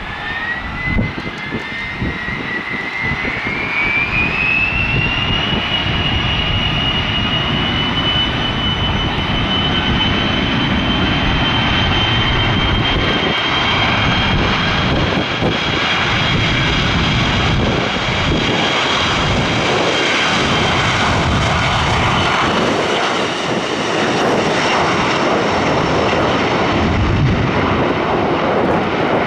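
Boeing 737-400's CFM56 turbofan engines spooling up to takeoff thrust. A whine rises over the first five or six seconds, then holds steady over a loud, broad rumble as the jet rolls down the runway.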